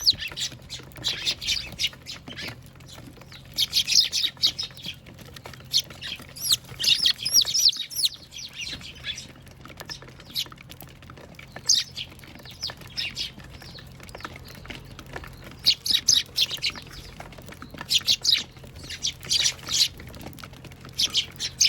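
Eurasian tree sparrows chirping at a feeder: bursts of short, high chirps from several birds, coming in clusters every second or two.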